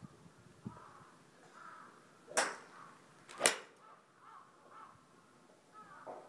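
Golf club striking a ball twice at a driving range: two sharp cracks about a second apart, the second the louder.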